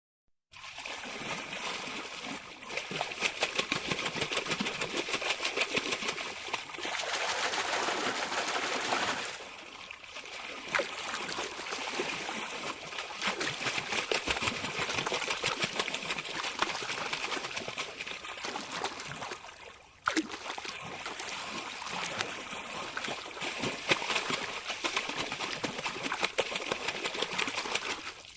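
Water trickling and splashing steadily, with brief breaks about ten and twenty seconds in where the sound shifts.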